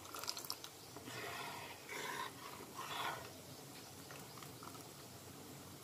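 Curry-leaf paste and oil simmering in a kadhai over a low flame, bubbling faintly. A ladle lifts oil and pours it back with a few soft splashes in the first three seconds, and after that only the quiet bubbling goes on.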